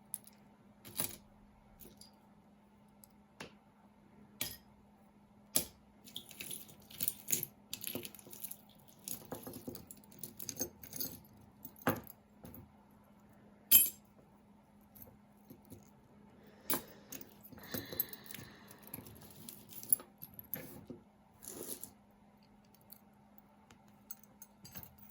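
Metal costume jewelry jangling and clinking as pieces are picked through and handled: irregular sharp clicks and small clusters of clinks, one louder clack about halfway through.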